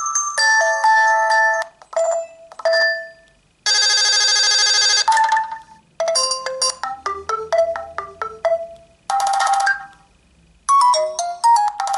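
Nokia 2720 Flip's built-in ringtones previewing one after another through its loudspeaker as the list is scrolled. It is a string of short electronic melodies and chimes, each cut off abruptly when the next one starts, about half a dozen in all.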